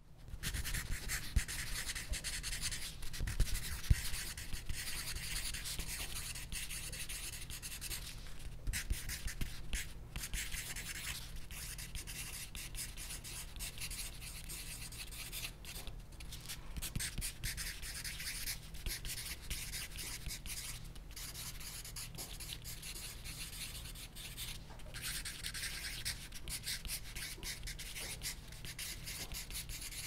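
Pencil writing on paper: continuous dry scratching of graphite across the page, broken now and then by brief pauses between strokes.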